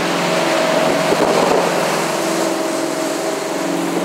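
Boat's engine running under way, a steady drone, with rushing air and water noise and wind buffeting the microphone around a second in.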